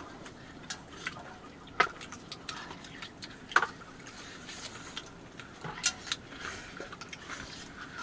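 Scattered light clicks and clinks of tableware being handled during a meal, the two loudest about two and three and a half seconds in.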